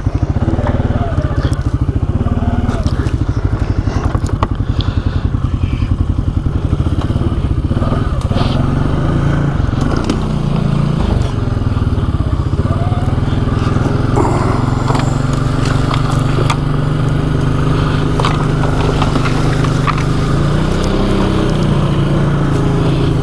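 ATV engine running at low speed with the throttle rising and falling. Branches crack and scrape against the machine as it pushes through brush.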